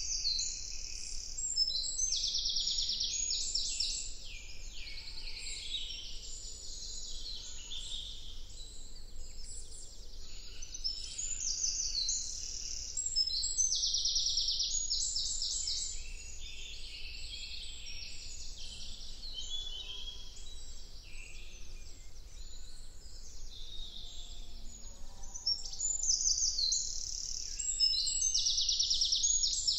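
Many small birds singing at once in woodland: overlapping high, rapid trills and song phrases that swell and fade, loudest around 13–15 s and again near the end.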